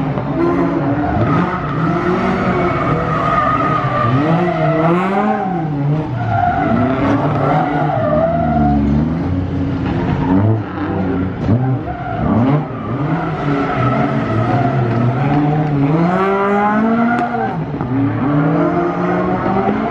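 Race car engine revving hard and backing off over and over, its pitch climbing and dropping every second or two, with tyres squealing as the car is thrown around a gymkhana course.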